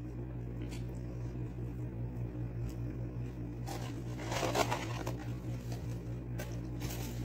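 Paper fast-food packaging rustling and crinkling about four seconds in as fries are handled, over a steady low hum.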